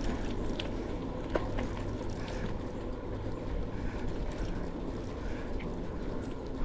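Bicycle rolling along a trail: steady tyre and wind noise with a low hum, broken by a few light clicks and rattles.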